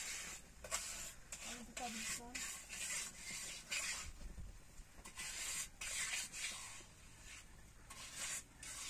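Repeated short rubbing scrapes of mortar being smeared by hand into the joints of a concrete-block wall, about two strokes a second with a few pauses.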